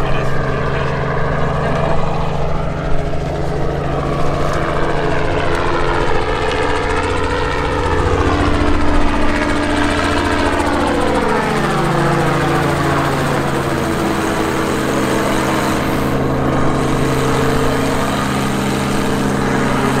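Small two-bladed helicopter flying close by with a steady rotor and engine sound; its pitch wavers as it circles and slides down as it passes, around ten to twelve seconds in.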